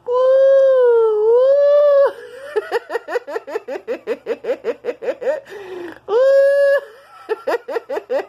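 A person making a silly high-pitched vocal noise: a long falsetto wail that dips and rises, then a quick run of short rising yelps, about four or five a second, then another short wail and more yelps.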